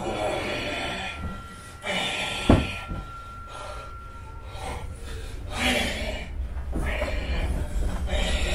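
Heavy, noisy breaths and snorts, coming in repeated surges from a person under a bedsheet, with one sharp thump about two and a half seconds in.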